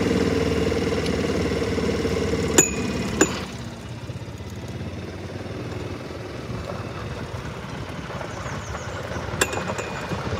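A golf cart's engine runs steadily while driving, then drops off to a quieter rumble about three and a half seconds in. There are a few sharp clicks: two close together just before the drop, and one near the end.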